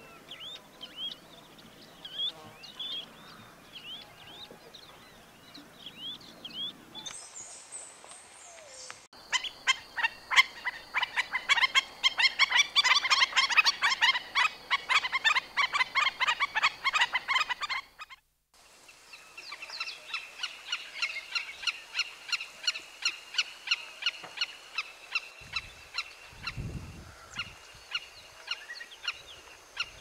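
Shorebird calls in several short sections. The loudest, in the middle, is black-necked stilts giving a dense run of sharp, yapping calls. Before it come fainter chirping calls, and after it another steady series of sharp repeated calls, with a few low thumps near the end.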